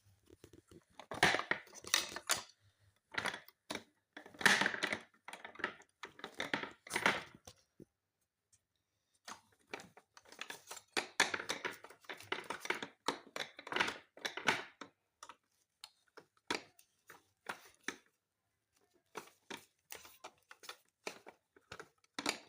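Hands working on a digital piano's key and hammer mechanism: irregular scraping, crinkling and clicking of plastic and rubber parts in clusters, with short pauses.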